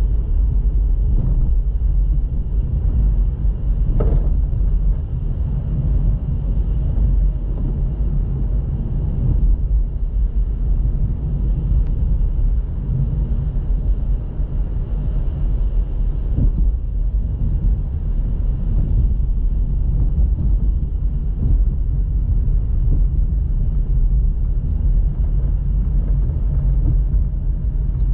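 Car driving: a steady low rumble of engine and tyre noise, with a single sharp knock about four seconds in.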